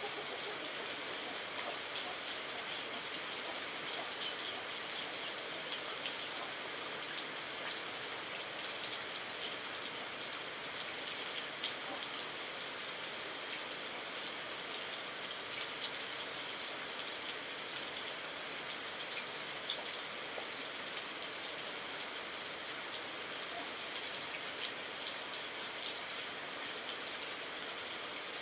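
Steady rain falling: a constant hiss with scattered sharp drop ticks, one louder tick about a quarter of the way in.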